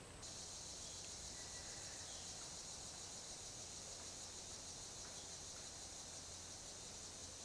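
Steady high-pitched insect chorus, with no gunshots.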